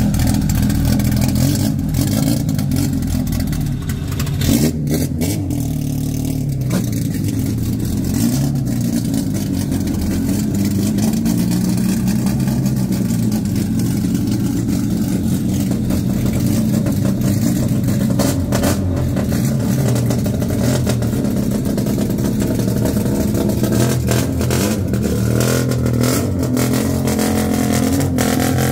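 Naturally aspirated drag-racing car engine running loudly at a fairly steady speed, its pitch wavering slightly.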